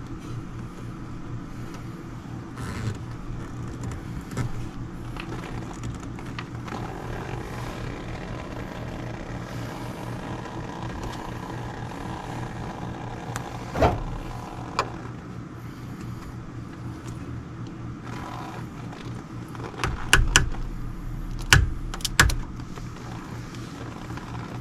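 Steady low mechanical hum with scattered knocks and clacks of handwork: one sharp knock about halfway through and a quick cluster of louder clacks near the end.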